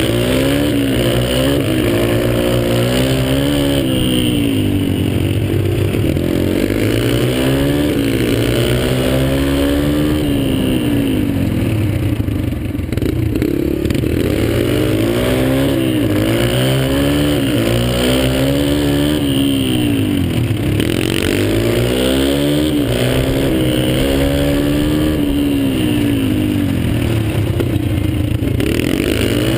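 Dirt bike engine heard from on board, revving up and easing off again and again, its pitch climbing and dropping every two to three seconds.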